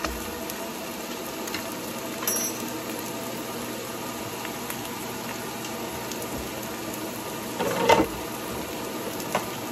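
Golden-browned onions and garlic-ginger paste sizzling steadily in oil in a nonstick wok, left unstirred over a medium flame. A brief louder clatter comes near the end.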